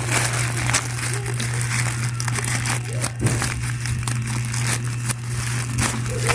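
Packaging being handled and unwrapped, with irregular crinkling and rustling, over a steady low hum.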